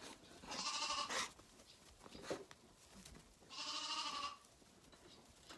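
Zwartbles lambs bleating twice, each a wavering call under a second long, as they clamour for more of the bottle milk they were shortchanged on. A brief knock falls between the two bleats.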